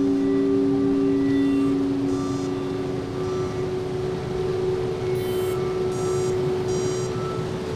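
Electronic ambient sound-art score: a held low drone of two tones, the lower fading out about halfway, under a noisy hiss, with short high-pitched beeps and chime-like pings scattered through it.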